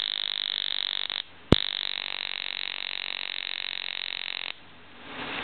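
Homemade 75 kV high-voltage generator arcing between its output terminals: a steady electric-arc buzz with a high whine. It cuts out a little over a second in, restarts with a sharp snap, and runs about three seconds more before stopping.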